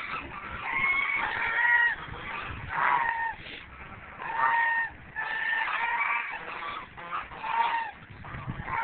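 Domestic geese honking repeatedly, short calls coming in quick clusters of two or three, one group after another.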